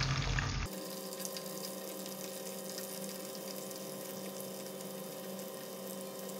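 Small flour-coated wet anchovies deep-frying in hot oil in a pan: a steady sizzle with fine crackling.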